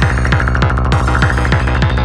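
Electronic psytrance music: a fast, even kick-drum and bass beat with synth lines above it.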